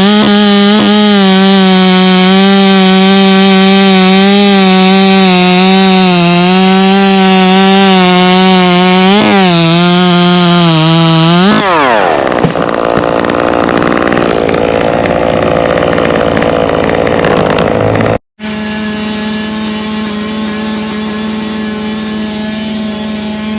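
Chainsaw running at high revs, its pitch wavering slightly under load. About twelve seconds in the throttle is let off and the pitch falls away into a rougher, quieter noise. After a sudden break, a small engine runs steadily and more quietly.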